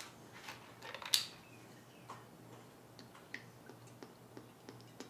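Scattered light clicks and taps from a plastic motor oil bottle being opened and handled, its cap unscrewed; the sharpest click comes about a second in.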